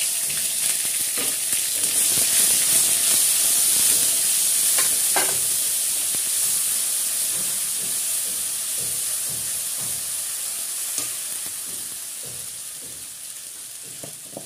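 Chopped tomato and ginger sizzling loudly in hot oil in a kadai, stirred with a metal spatula that scrapes against the pan a few times. The sizzle dies down steadily over the second half.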